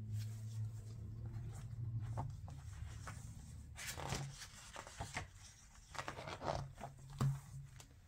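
Page of a picture book being turned by a gloved hand: a few short, soft rustles and taps of paper and card, clustered about halfway through and near the end.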